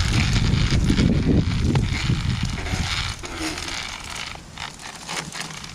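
Mechanical clattering with many short clicks and knocks over a low rumble, easing off somewhat near the end.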